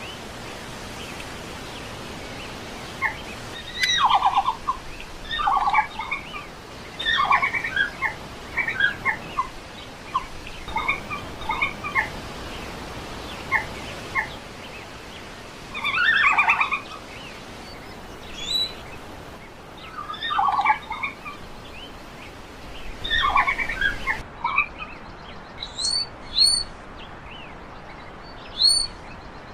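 Red panda calls: short bursts of chirping, twittering notes, one burst every second or two. About 24 s in the recording changes and the calls become higher, thinner chirps.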